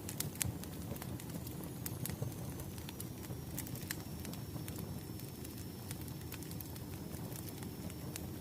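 Wood fire crackling: scattered sharp pops and snaps over a low, steady rumble of burning logs.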